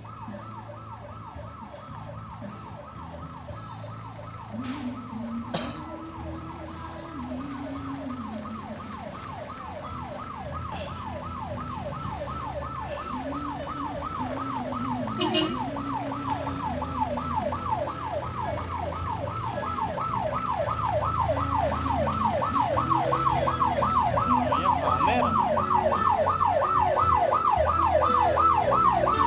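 Electronic siren on a funeral car, warbling rapidly up and down, growing steadily louder as the car approaches.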